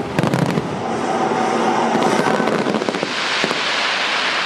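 Aerial firework shells bursting: a quick cluster of bangs in the first half second, then scattered single bangs. From about three seconds in, a dense crackling hiss from the falling gold glitter trails.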